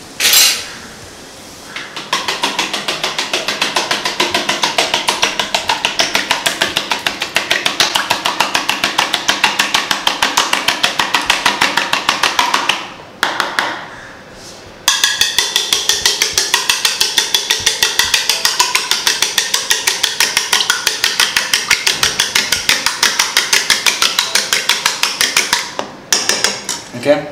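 Metal spoon whisking raw eggs in a plastic bowl: quick, steady clicking strokes about four a second, pausing for a couple of seconds around halfway before starting again.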